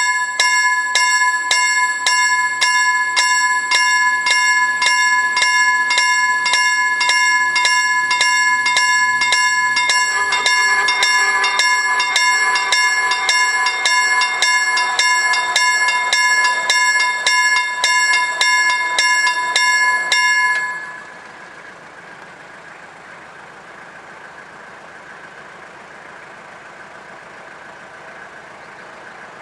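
Level crossing warning bell ringing, about two strokes a second over a steady electronic tone; it cuts off about 20 seconds in, leaving the quieter steady sound of the approaching diesel freight train.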